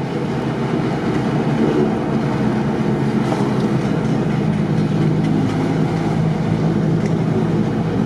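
A car's engine and tyre noise heard from inside the cabin while driving along steadily: a continuous low drone.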